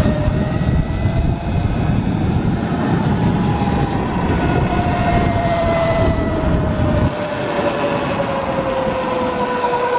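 Sur-Ron electric dirt bike's motor whining under way, its pitch rising a little and then falling slowly as the bike eases off. A heavy low rumble of wind and tyre noise runs under it and drops off about seven seconds in.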